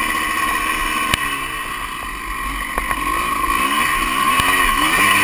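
Honda CR250 two-stroke dirt bike engine revving up and down as the bike is ridden, its pitch rising and falling several times, with wind rushing over the microphone. A single sharp knock about a second in.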